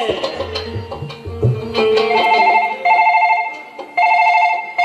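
A few low drum beats, then a telephone ringing in repeated short trilling rings, starting about two seconds in.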